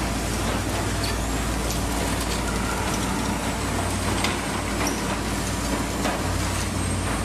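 Tram crossing the bridge: a steady rumble that swells over the first second, with faint clicks and a thin high squeal from the rails.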